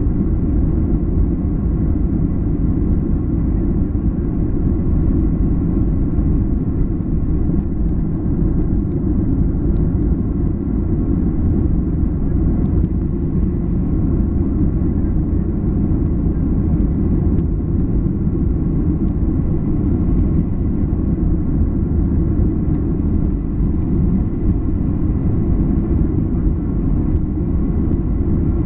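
Boeing 737-800 climbing out after takeoff: its CFM56-7B engines and rushing air make a steady, even low rumble that neither rises nor fades.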